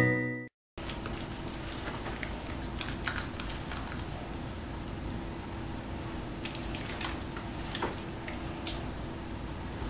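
Hands lathering up goat milk soap, rubbing together with scattered small wet clicks of lather over a faint steady hum.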